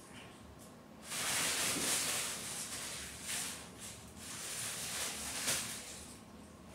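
Crinkly cat play tunnel rustling and crackling as a cat moves around inside it. The rustling comes in bursts starting about a second in, with sharper crackles around the middle, and dies down near the end.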